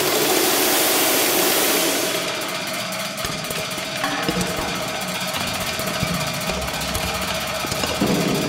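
Experimental percussion on steel sound sculptures: a dense metallic rattling texture over a steady ringing tone. A hissing wash in the first two seconds gives way to rapid fine rattling with a few low knocks.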